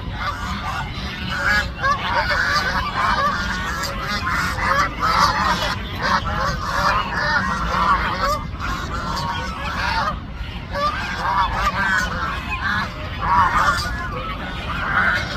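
A flock of geese honking continuously, many short calls overlapping one another, over a steady low rumble.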